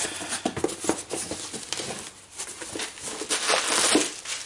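Metal parts being handled during a wheel hub installation: irregular clinks, taps and short scrapes, with a louder, longer scrape about three seconds in.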